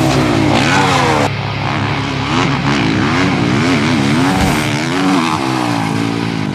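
Off-road vehicle engines: one revs up and down again and again, while another runs underneath at a steady pitch.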